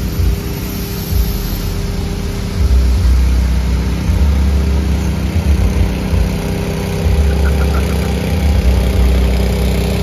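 Vehicle engine running steadily at low speed on the drag strip while the track is being dried. Gusty wind buffets the microphone, loudest from about two and a half seconds in.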